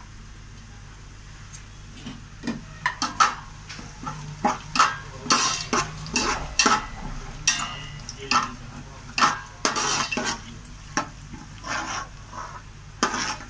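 A spoon stirring grated dried coconut frying in ghee in a steel pot. About two seconds in it starts scraping and knocking against the pot in quick, irregular strokes.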